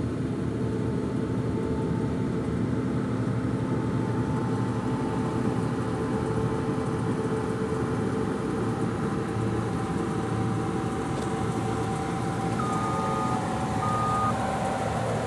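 John Deere 1470 combine harvester running steadily under load while threshing wheat, its engine and threshing machinery giving a constant mechanical drone. Near the end two short electronic beeps sound.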